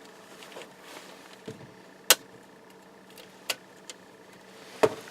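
Sharp plastic clicks from a screwdriver prying at a laptop's screen bezel and hinge cover: a loud click about two seconds in and two more later, over a faint steady hum.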